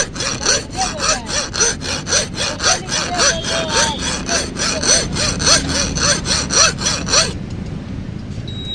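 Quick, rhythmic back-and-forth rasping strokes of a hand saw or file, about four a second, stopping about seven seconds in.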